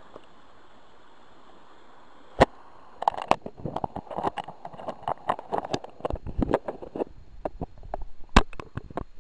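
Steady hiss of a small rushing stream, then a sharp knock about two seconds in. From about three seconds on, irregular rustling, clicks and knocks follow as clothing and fishing gear rub and bump against a body-worn camera's microphone.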